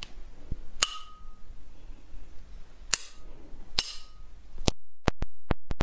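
Sharp knocks of a metal spoon struck hard against a glass bowl of water: a few single knocks spaced about a second apart, the first ringing briefly, then a quicker run of four near the end.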